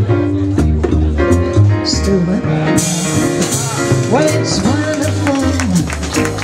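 Live swing jazz band playing, with a steady bass line on the beat and cymbal strokes. A woman's singing voice comes in about two seconds in.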